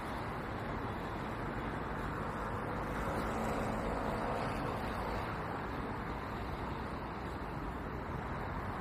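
Steady noise of city road traffic, swelling a little a few seconds in.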